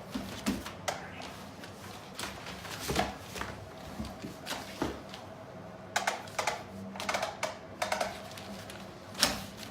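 Irregular clicks and knocks of a kitten pouncing and batting at a SmartyKat Hot Pursuit concealed-motion cat toy, the loudest about three seconds in and near the end, over a faint steady hum.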